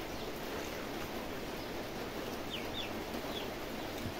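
Steady background hiss of outdoor ambience, with three short, falling bird chirps a little past halfway through.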